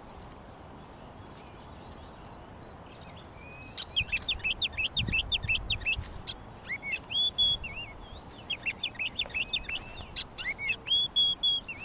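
Quick runs of high, bird-like chirps starting about four seconds in, broken by a couple of longer held whistling notes, over a low steady background.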